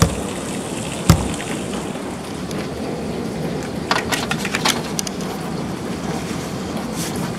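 Heavy rain falling steadily, a constant hiss of rain on the lawn, pavement and porch. A single dull thump about a second in and a quick cluster of clicks around four seconds in.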